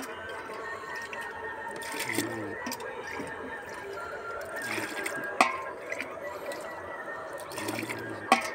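Water being scooped and poured by hand from a metal pot with a small cup, in short splashes every few seconds, with two sharp knocks.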